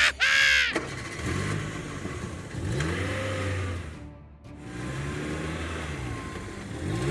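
Vehicle engine revving up and down in two runs, with a brief break about four seconds in, over background music. A short, bright, high sweeping sound comes right at the start.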